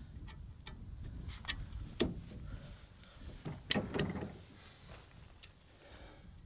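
Scattered metal clicks and clanks from a Weigh Safe weight distribution hitch as its stiff sway control arm is worked and swiveled out at the hitch head, the sharpest clank a little past halfway.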